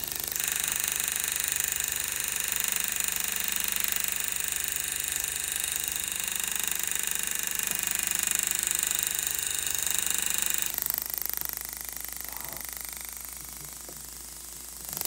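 Pneumatic GraverMax hammer handpiece rapidly pounding the metal walls of a channel setting down over a loose diamond, a steady fast hammering. It goes quieter about eleven seconds in and picks up again near the end.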